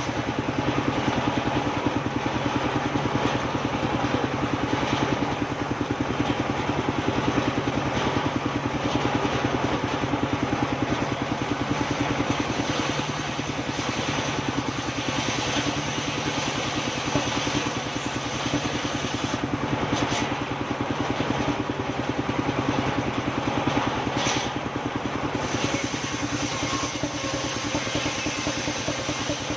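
Engine of a machine sawmill running steadily at a constant speed, dipping slightly in loudness about halfway through.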